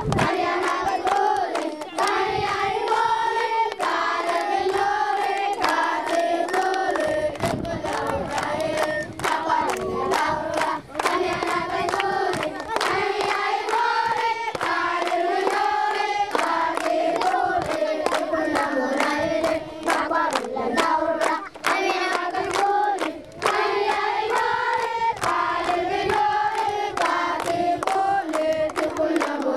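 A crowd of schoolchildren singing a song together and clapping along.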